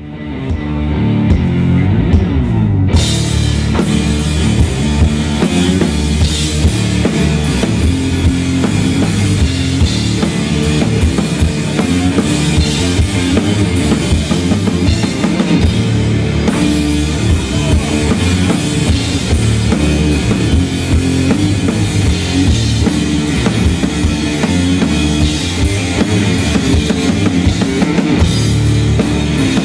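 Rock band playing loud, with a pounding drum kit to the fore and electric guitar. It fades in at the start and fills out about three seconds in.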